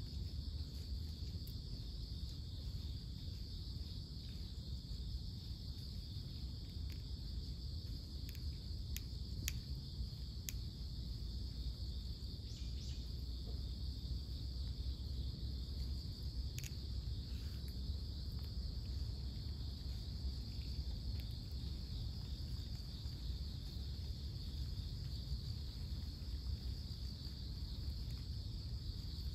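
Steady insect chorus, a continuous high-pitched chirring, over a low rumble, with a few sharp ticks in the middle.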